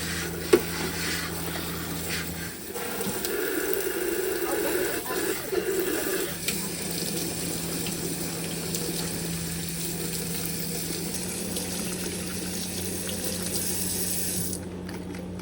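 Kitchen faucet running into the sink, with the water splashing louder for a few seconds in the middle, as the dishwasher filter is rinsed of degreaser. The tap shuts off about a second before the end.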